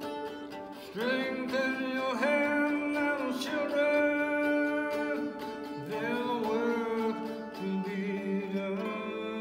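A mandolin played in steady strokes, with a man singing long, gliding held notes over it from about a second in.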